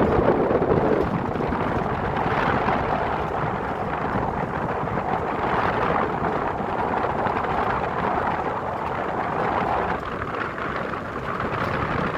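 Steady rushing noise whose tone shifts abruptly about a second in and again near the end.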